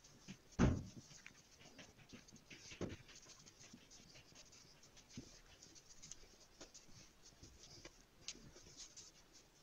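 Hands rubbing and tossing dry flour mix in a glazed earthenware dish: a soft, scratchy rustle of flour against the hands and the dish. There is a dull thump about half a second in and a lighter one near three seconds.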